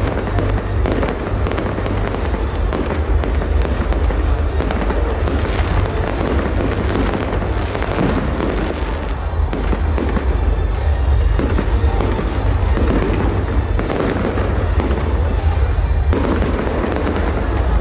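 Fireworks salute: a dense, continuous run of shell bursts, booms and crackles, with music playing underneath.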